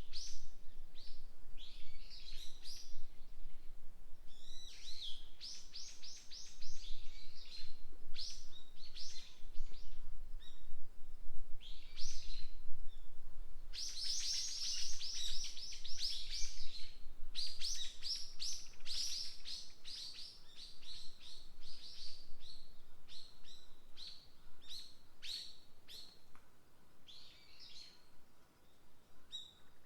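Small songbirds chirping and singing in rapid trills, several calling over one another. The chorus is densest about halfway through and thins out and fades near the end.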